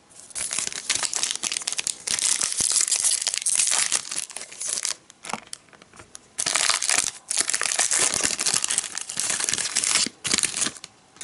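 Foil-lined plastic wrapper of a Topps baseball card pack crinkling and tearing as it is ripped open by hand. It comes as two long stretches of dense rustling with a pause of about a second and a half between them.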